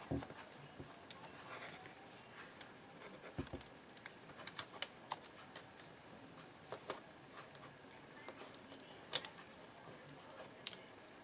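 Sticky tape being handled and wrapped around two toothpicks: faint, irregular small clicks and crinkles, a few slightly louder ones about a third of the way in and near the end.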